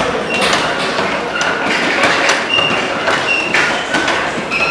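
Boxing gloves striking a double-end bag in an irregular run of quick thuds.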